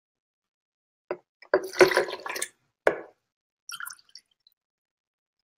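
Water poured from a plastic bottle through a measuring cup into a blender jar, splashing and dripping in spurts for about two seconds starting about a second in, followed by a few faint drips.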